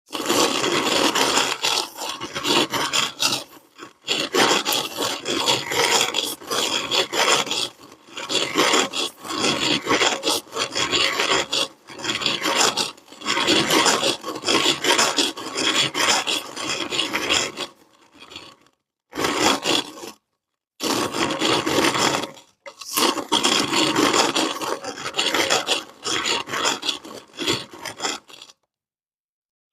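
Kinetic sand being ground through a meat grinder: a gritty, rasping crunch in uneven stretches that swell and fade, broken by a few short silent gaps in the second half.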